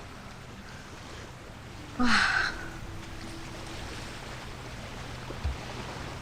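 Beach ambience: a steady hiss of calm sea water and wind, with a short louder burst about two seconds in.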